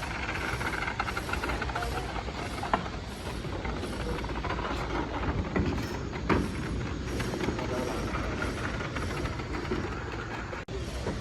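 Large power-cable drum turning on a makeshift support stand as heavy cable is pulled off: a steady rumble with occasional clicks and knocks. Workers' voices are in the background.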